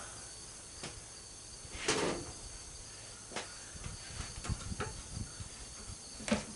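Scattered clicks and knocks of hand-tool work on the chipper shredder's plastic cover and its screws, with a louder scrape about two seconds in and a run of small knocks in the second half. A steady high chirring of crickets runs underneath.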